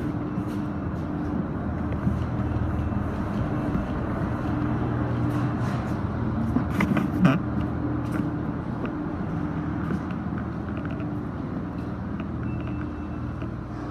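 Steady low mechanical hum of running machinery, with footsteps going down stairs and a few knocks.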